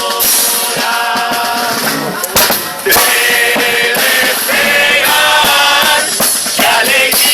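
Murga chorus singing together over carnival percussion, with a short break a little over two seconds in before the full ensemble comes back louder.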